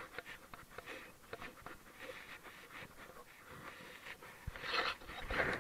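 A person breathing heavily close to the microphone while walking, in short repeated breaths that grow louder near the end.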